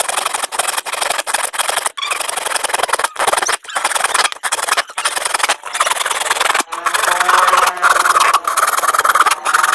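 Scraping and rubbing of a hand tool working PVC pipe, in quick uneven strokes, getting louder and harsher over the last few seconds.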